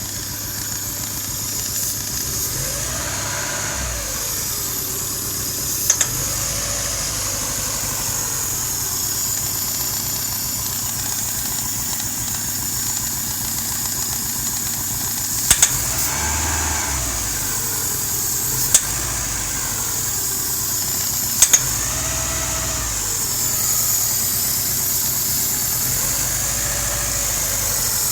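A 2001 Hyundai Tiburon's engine idling with a steady high hiss, in a car being checked for a vacuum leak. The engine note swells briefly a few times, and there are a few sharp clicks.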